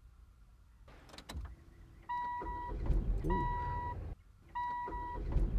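A car's ignition key clicks about a second in. After that the dashboard warning chime beeps a single clear tone over and over, about once every 1.2 seconds, over a low rumble from the car.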